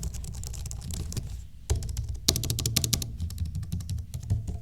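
Rapid typing on a Logitech MX Keys keyboard, its low-profile scissor-switch keys clicking in quick runs, with a brief pause about a third of the way in.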